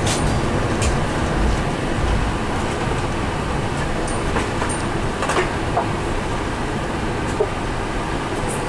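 Steady cabin rumble inside an Airbus A380 during landing, a little louder in the first couple of seconds, with a few faint clicks and rattles.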